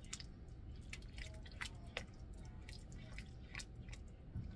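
A spoon stirring thick, saucy chicken pot pie filling in a cast iron skillet: irregular wet squelches and sharp clicks of the spoon against the pan, several a second.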